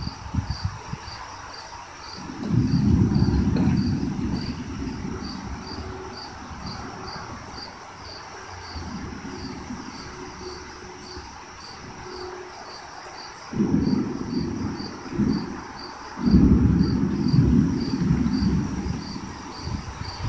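Crickets chirping steadily, about two chirps a second, under deep rumbling that swells and fades several times, loudest in the last few seconds.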